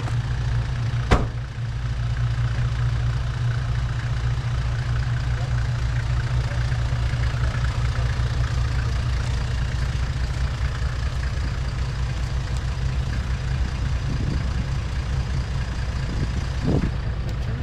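Toyota Land Cruiser engine idling steadily, low in pitch. A sharp knock about a second in, and a smaller one near the end.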